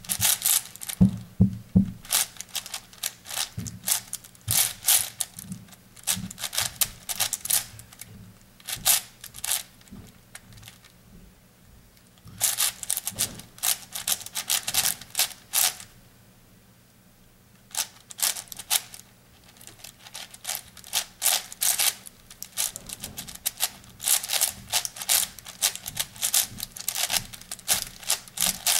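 An 8x8 cube being turned by hand: bursts of rapid clicking and clacking as its plastic layers are twisted, with a pause of about a second and a half just past the middle.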